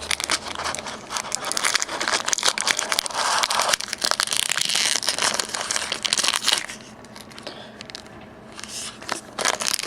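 Foil booster pack wrapper crinkling and tearing as it is opened by hand. The crackling eases off for about two seconds near the seven-second mark, then starts again near the end.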